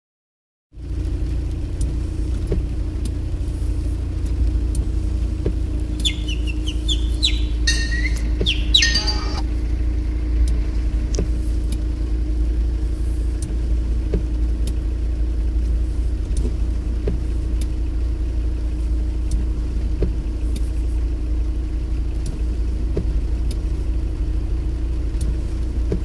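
Steady low rumble of a car driving slowly through a flooded road, heard from inside the cabin, with faint regular ticks. About six seconds in comes a brief run of high chirping that lasts a few seconds.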